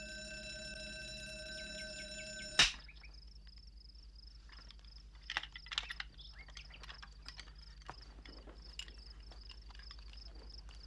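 An electric doorbell stuck ringing with a steady, even tone, cut off about two and a half seconds in by a sharp bang. After it, crickets chirp steadily, with a few scattered clicks and taps.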